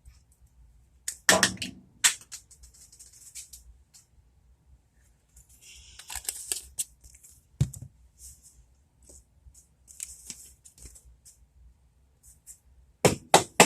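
Garlic powder being shaken from a spice shaker onto a roast: several short, hissy shakes, with sharp clicks from handling the container's lid and a dull knock.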